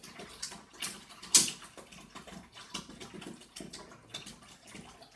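Small clicks and knocks of a magnetic drain plunger being worked by hand against a plastic drain trap to break up a hard clog, with a faint liquid trickle as drain-cleaner gel seeps through; one sharper click comes about a second and a half in.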